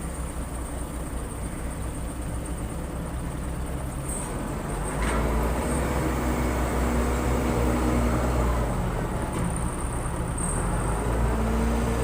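Case 580 Super L backhoe loader's diesel engine running, then revving up harder under load about five seconds in, with a single knock at that moment.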